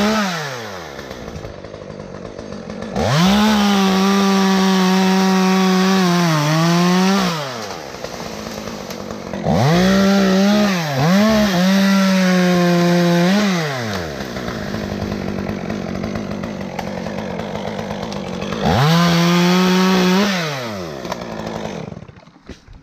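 Stihl top-handle chainsaw revving up to full throttle four times, with the longer bursts lasting a few seconds each and idling in between. The engine note sags and picks back up during the cuts as the chain loads in the wood. The sound drops away near the end.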